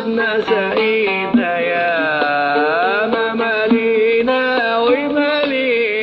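Oud playing a melodic interlude in plucked notes, with a smooth sliding phrase near the middle, over a riq (Arab tambourine) beating time.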